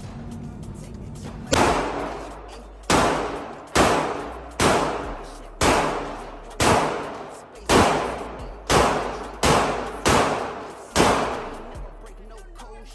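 Gunshots at an indoor shooting range: about eleven single shots in a slow, fairly even series, each followed by an echoing decay.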